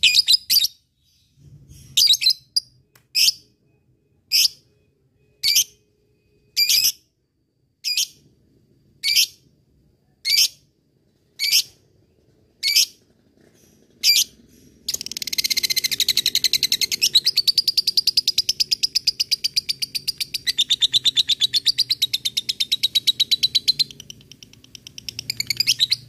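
Lovebird calling: about a dozen sharp single chirps, roughly one every second, then a long, fast chattering trill, the 'ngekek' song, lasting about nine seconds. After a short pause a second run begins near the end.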